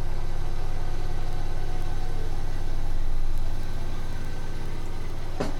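A steady low machine hum with a fine, even pulse, broken by two sharp knocks near the end.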